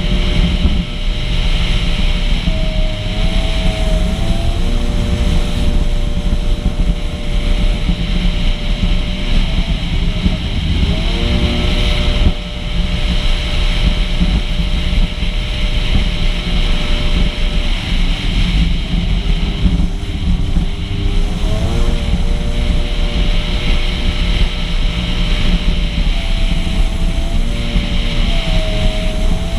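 Yamaha two-stroke personal watercraft running at speed, its engine tone holding steady and then rising and dipping in pitch a few times. Heavy wind on the microphone and rushing water are mixed in.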